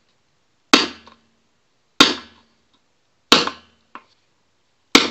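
Hammer striking the back of a second hammer whose edge is set against the bent flange of a stamped steel wheel rim. There are four sharp metal-on-metal blows about a second and a quarter apart, each ringing briefly. It is the sound of a bend in the rim being knocked straight.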